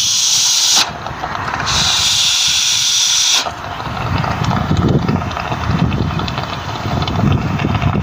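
Nitrogen rushing out of the open end of an air-conditioner's copper refrigerant line during a flush. It comes as two sharp hissing blasts in the first three seconds or so, then a lower, rougher rushing with irregular surges. The gas is blowing leftover oil out of the lines before new compressors are fitted.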